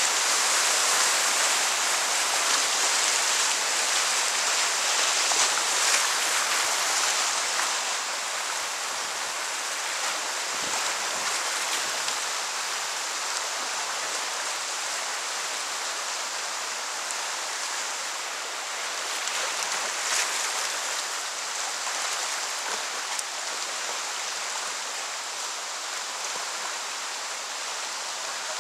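Whitewater river rushing around a kayak, heard close to the water: a loud, steady rush through the rapid that eases to a slightly quieter flow about eight seconds in as the water calms.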